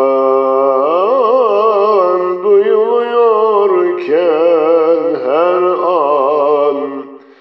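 A man singing a Turkish ilahi (Islamic hymn) solo and unaccompanied, holding long notes with wavering, melismatic ornaments. He breaks off briefly for a breath near the end.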